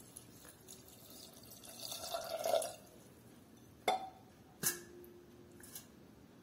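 Water being poured into a pressure cooker onto pulses, a soft filling sound that swells about two seconds in. Then two sharp clinks, the second leaving a brief ring.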